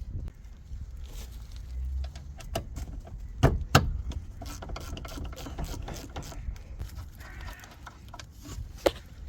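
Clinks and knocks of hand tools and metal parts being handled during work on a car, with two sharp knocks about three and a half seconds in and another near the end, over a low rumble.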